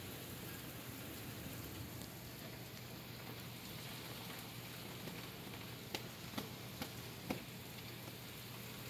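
Steady rain falling during a thunderstorm, with a few sharp taps of drops in the second half.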